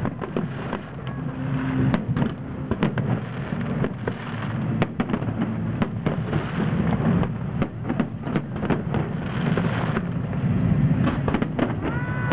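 Aerial firework shells bursting one after another: frequent sharp bangs over a continuous rumble and crackle.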